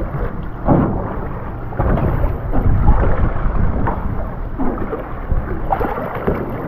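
Wind buffeting the microphone on an open boat, a heavy low rumble over water noise, with faint indistinct voices now and then.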